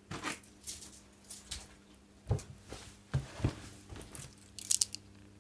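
A bunch of keys on a key chain being fetched and handled: scattered rustles and knocks, with a brief cluster of sharp metallic clicks near the end.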